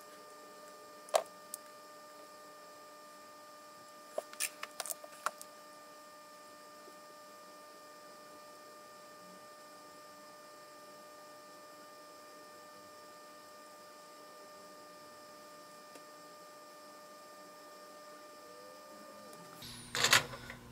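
Faint steady electrical hum, with a sharp click about a second in and a quick run of small clicks and taps around four to five seconds in, as pliers and a soldering iron are handled. A louder handling noise comes in near the end.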